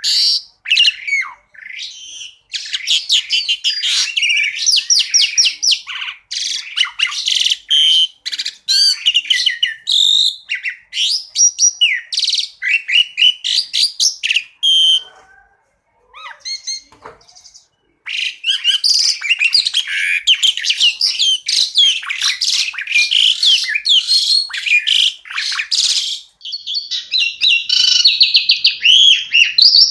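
Pied starling (jalak suren) singing a fast, varied song of chirps, whistles and rapid trills in quick succession, the busy 'tembakan' style used as a masteran for training cage birds. The song breaks off for a few seconds about halfway, then resumes just as densely.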